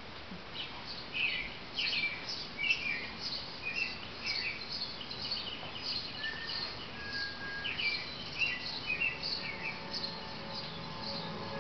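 Bird chirping: a steady run of short, high chirps and twitters, several a second.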